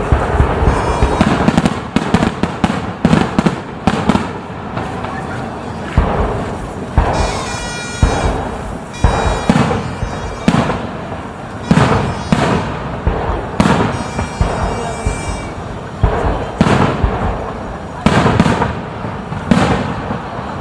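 Aerial fireworks shells bursting in quick succession, a deep boom every second or two, with crackling stripes between them and two short high whistling tones partway through.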